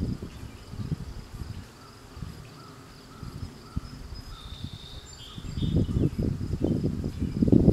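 Insects drone steadily in the field grass, with a few short high chirps about four to five seconds in. Irregular low rumbling buffets are loudest at the start and again over the last two seconds.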